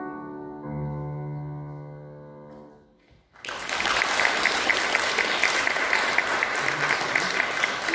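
Grand piano playing the last chords of a song's accompaniment, dying away to near silence about three seconds in; then an audience breaks into applause, louder than the piano, and keeps clapping.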